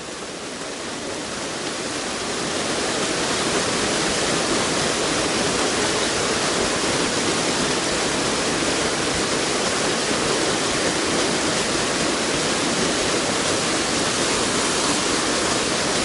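Waterfall pouring down a rock face into a pool: a steady, loud rushing of water that builds over the first couple of seconds, then holds level.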